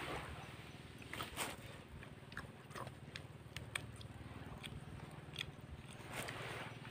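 People eating: faint chewing and lip smacks with scattered small clicks.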